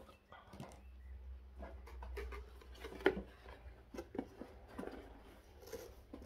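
Light handling noises: scattered small clicks and taps of objects being handled, with one sharper click about three seconds in, over a faint steady low hum.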